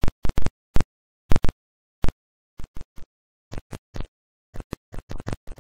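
A series of short, sharp knocks separated by dead silence. They are loud at first, then softer and coming faster and faster toward the end, like an edited impact sound effect.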